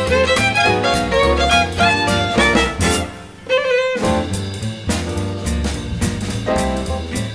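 Background music with a steady beat and a melody. About three seconds in it thins to a single held note, and the full beat comes back at about four seconds.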